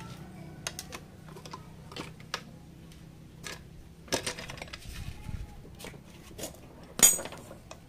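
Scattered metallic clicks and taps of a screwdriver prying the clutch-side crankcase cover off a Honda Supra Fit New engine, with one sharp, ringing metal clank about seven seconds in, the loudest sound.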